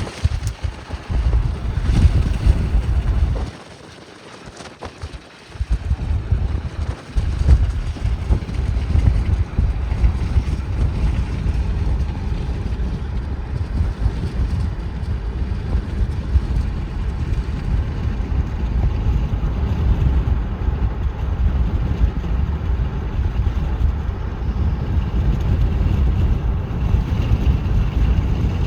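Wind buffeting the microphone and road noise from a car moving at about 35 mph: a steady, rough low rumble that drops away for about two seconds a few seconds in.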